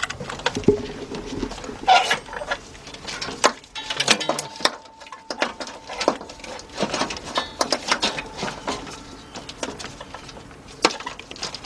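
Irregular light clattering and knocking of plastic and metal parts as the engine wiring harness is fished down past the engine.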